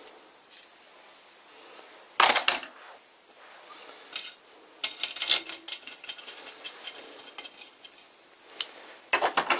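Steel bolt and split lock washer clinking and clanking against a steel chuck backing plate as they are picked up and set into its threaded holes. A sharp clank about two seconds in is the loudest, more clinks come around five seconds, and a quick run of clinks comes near the end.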